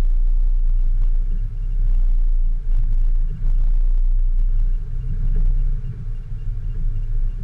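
Off-road vehicle driving: a heavy low rumble that swells and dips.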